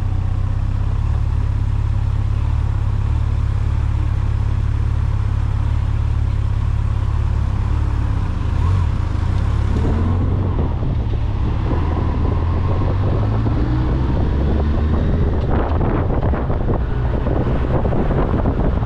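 A moving vehicle heard from on board: a steady low rumble of engine and road noise. From about fifteen seconds in, rough, crackling wind buffeting on the microphone rises over it.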